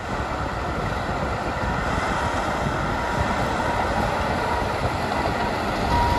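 Heavy snow-clearing machinery, front loaders and dump trucks, running together in a steady, even engine rumble.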